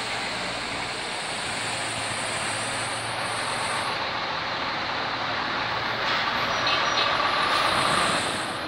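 Heavy tractor-trailer rolling over the bridge, a steady rumble of tyres and engine. From about six seconds in it grows a little louder and a thin high tone, like a brake squeal, joins it.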